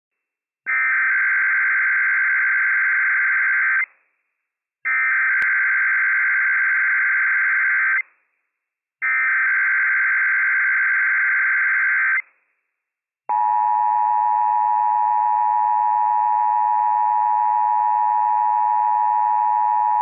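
Emergency Alert System SAME header: three bursts of warbling digital data tones, each about three seconds long with about a second's gap between them, encoding a Required Monthly Test. About thirteen seconds in, a steady two-tone attention signal starts and keeps sounding.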